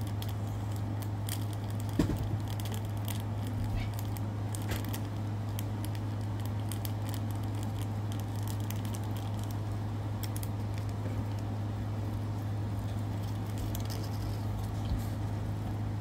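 Wet, sticky clicking and crackling of slime being squeezed and kneaded by hand, with the clicks thickest in the first few seconds and one sharper knock about two seconds in. A steady low hum runs underneath.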